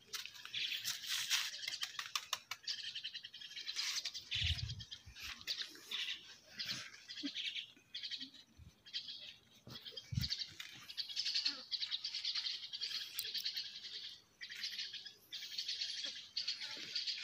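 Small birds chirping in a nearly continuous rapid chatter. Two brief low thumps come about four and a half and ten seconds in.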